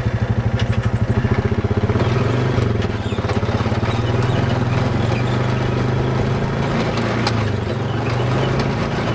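ATV engine idling with an even pulsing beat. About two seconds in the revs rise and it runs steadily, with scattered small knocks and rattles.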